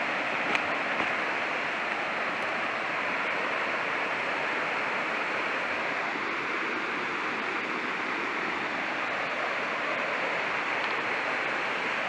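Steady rushing of a small waterfall's falling water, with one faint click about half a second in.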